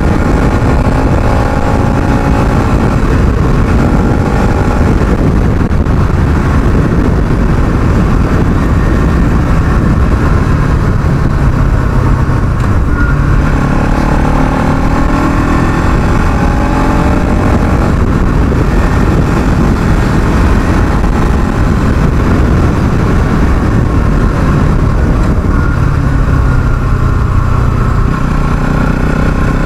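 Bajaj Pulsar NS200's single-cylinder engine running hard while the bike is ridden fast. The exhaust pitch climbs and drops several times as it accelerates and shifts.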